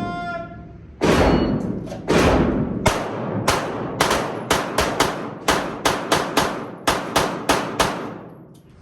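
Electronic shot-timer beep, then pistol fire from two shooters racing each other. About a second in the shots begin, some twenty in seven seconds, quickening to several a second, each with an echoing tail, and they stop shortly before the end.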